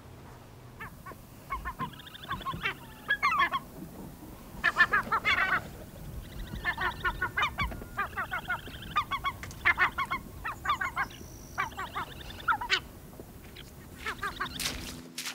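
Gulls calling: clusters of rapid repeated calls that start about a second and a half in and die away near the end.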